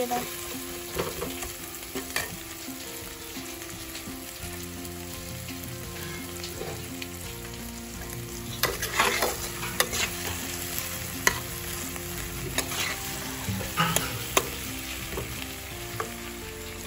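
Spice masala with freshly added poppy-seed paste frying in oil in a non-stick kadai: a steady sizzle while a metal spatula stirs and scrapes the pan, with sharper scrapes and knocks now and then, most of them in the middle stretch.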